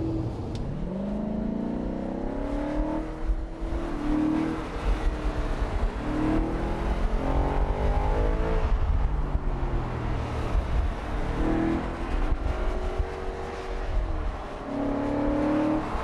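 Audi RS 5 Cabriolet's V8 engine under hard driving, its note rising in pitch and dropping back several times as the car accelerates and the revs fall, over a low rumble of exhaust and road noise.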